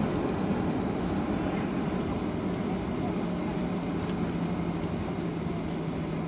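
Cabin noise of a Boeing 737 rolling out on the runway after landing: a steady rumble of the engines and airflow that slowly falls away as the jet slows. A steady low hum comes in about two to three seconds in.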